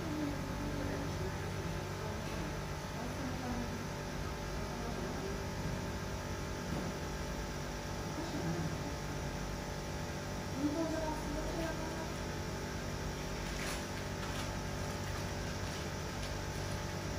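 Steady low mechanical hum. Faint wavering sounds drift over it, and a short click comes about three-quarters of the way through.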